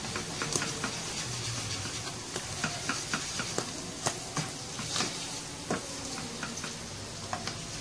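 Sliced mushrooms and garlic sizzling in a nonstick wok while a plastic spatula stirs them, with frequent light clicks and scrapes of the spatula on the pan as beef bouillon cubes are stirred in to dissolve.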